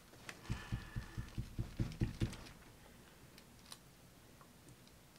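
A quick run of about ten soft, dull taps, roughly four or five a second, from gloved hands patting the plastic-covered work table, stopping a little past two seconds in.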